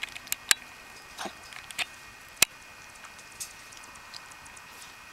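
Scattered light clicks and taps, with one sharp snap about two and a half seconds in, over a faint steady hum.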